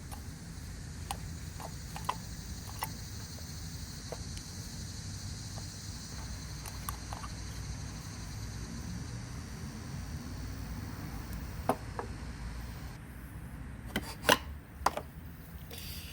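A wrench working the bottom nut off a Briggs & Stratton carburetor's float bowl: scattered light metal clicks and taps over a steady low hum, with a few louder knocks near the end as the nut comes out.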